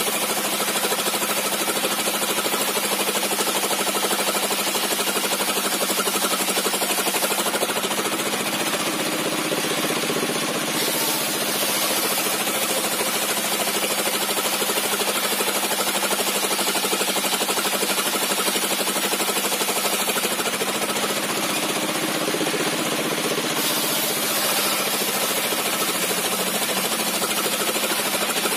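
A sawmill's large circular saw, a 60 cm blade with zigzag-set teeth, running steadily while ripping a squared timber lengthwise into planks. It makes a loud, continuous whining hiss that strengthens and eases a couple of times as the cut goes on.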